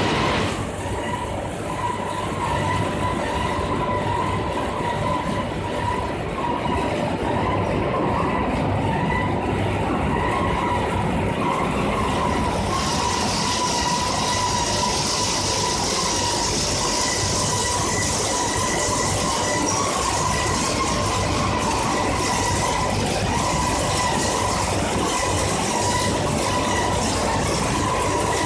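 Rotary drum dryer and its sawdust biomass burner running: a steady mechanical rumble with a continuous, slightly wavering whine. A brighter hiss joins about twelve seconds in.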